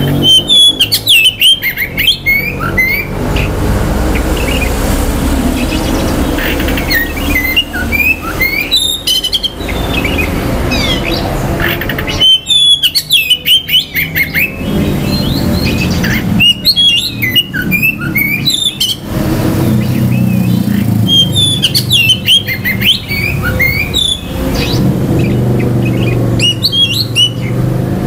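Oriental magpie-robin (kacer) singing in about six bursts of rapid, varied whistles and chirps, each lasting one to three seconds with short pauses between, over a steady low background rumble.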